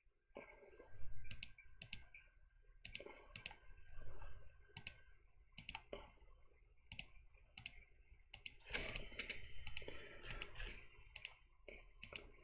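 Irregular clicking of a computer mouse and keyboard, about two sharp clicks a second, faint over a low room hum.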